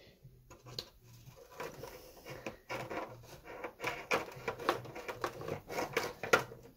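Irregular light rustling, scraping and clicking as a servo lead, drawn by a taped-on cotton thread, is pulled through the inside of a model glider wing. The sounds grow busier about a second and a half in.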